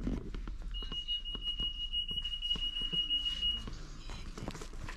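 A steady, high-pitched electronic beep held for about three seconds, starting just under a second in, with short clicks and rustles of handling around it.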